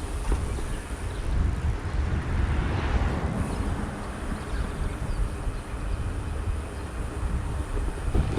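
Wind buffeting the microphone of a camera on a moving bicycle, a steady low rumble, with a car passing the riders about three seconds in.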